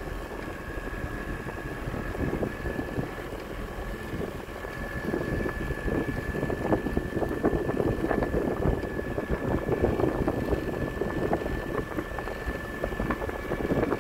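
Motorboat engine running under throttle, with a steady high whine, as wind buffets the microphone. It grows louder about five seconds in.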